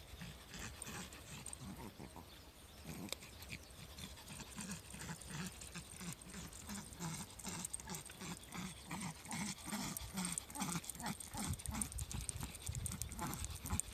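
A small dog panting fast in a steady rhythm while walking on a leash, growing louder toward the end. It is winded after only a short walk, which the owner puts down to the dog not being used to going out.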